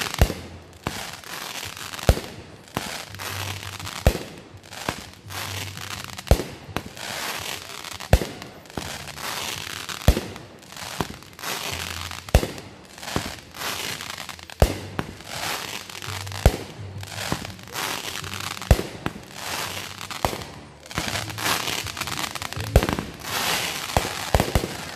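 Consumer fireworks firing shot after shot, a sharp pop roughly every two seconds, each trailed by a dense spray of crackling as the gold crackle stars burst and fall.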